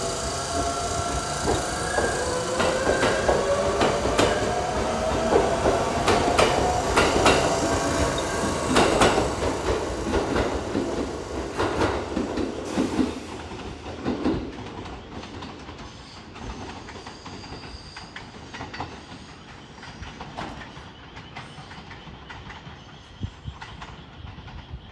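Electric train moving off and gathering speed, its motor whine rising steadily in pitch, with the wheels clacking over rail joints. The sound dies away after about fourteen seconds as the train moves off.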